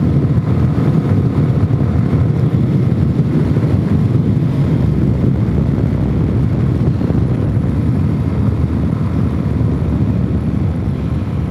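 Suzuki DRZ400S's single-cylinder four-stroke engine, fitted with an aftermarket exhaust and rejetted carburettor, running steadily under way, mixed with wind and tyre noise. It gets a little quieter near the end.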